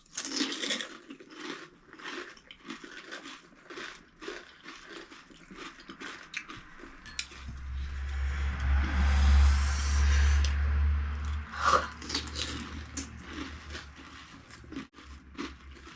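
Crisp panipuri shells crunching as they are bitten and chewed close to the microphone, in many short crackly bites. A low rumble with a hiss runs for about four seconds in the middle and is the loudest thing.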